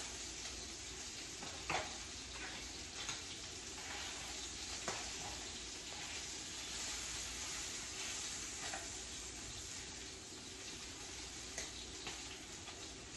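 Food sizzling steadily in a frying pan, with a few short, light knocks of kitchen utensils or dishes.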